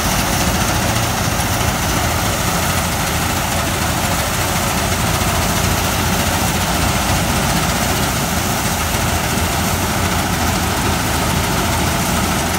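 Massey Ferguson 260 tractor's diesel engine running steadily under load, driving a wheat thresher through its PTO shaft. The thresher's drum whirs and rushes as wheat straw is fed into it.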